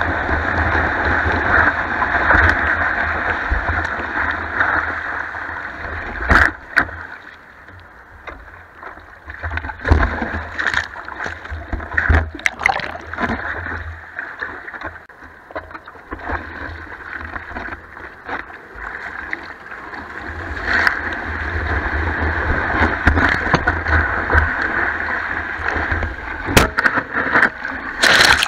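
Surf whitewater rushing and churning around a foam surfboard as it is carried through breaking waves, picked up by a camera mounted on the board's nose, with sharp slaps of water on the camera. The rush is quieter for a stretch in the middle, while the board sits in shallow surf, and loud again near the end.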